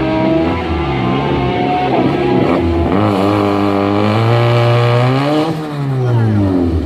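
Turbocharged 1.8-litre four-cylinder (VW 1.8T) engine accelerating hard: revs climb, drop at a gear change about three seconds in, climb again, then fall away over the last second and a half.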